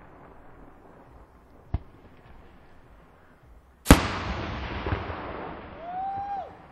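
Aerial fireworks shells going off: a small sharp bang about two seconds in, then a much louder shell burst about four seconds in. Its echoing rumble and crackle trails off over the next two to three seconds.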